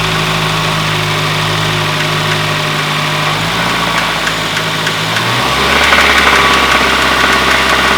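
2010 Kia Forte Coupe's 2.4-litre four-cylinder engine idling with a light knock, the sign of a worn connecting-rod bearing. About five and a half seconds in the engine note drops lower and gets louder.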